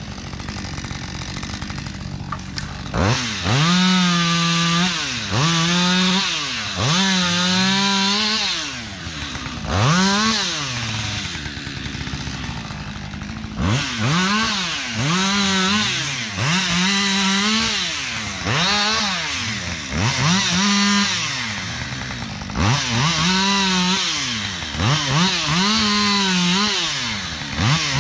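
Petrol chainsaw running, repeatedly revved up to full throttle for short cuts through branches of a felled tree and dropped back each time. It idles for a few seconds near the start and again about halfway through before the revving resumes.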